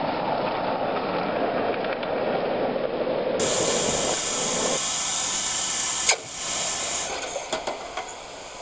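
Miniature live-steam locomotive: first a steady rushing noise as it runs, then a steady steam hiss from the standing engine. About six seconds in there is a sharp metal clank, and light metallic clicks follow near the end as tools work at the firebox.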